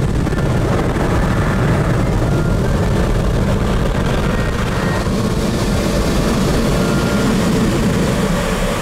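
Automatic car wash air-dryer blowers running, a loud, steady rush of air heard from inside the car cabin with the sunroof open.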